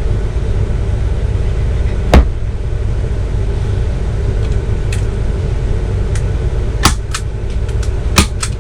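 Hammer strikes driving fasteners into a particle-board RV headboard: one loud knock about two seconds in, then a quick run of lighter taps near the end. A steady low rumble runs underneath.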